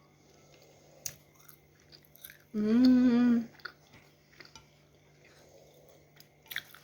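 Quiet mouth sounds of someone chewing, with small crunching clicks. About two and a half seconds in comes a loud, wavering hummed 'mmm' of enjoyment lasting about a second.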